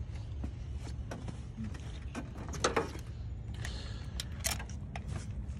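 Scattered metallic clicks and clatter of a socket ratchet and hand tools being worked on fasteners, with a couple of louder knocks about two and a half and four and a half seconds in, over a steady low rumble.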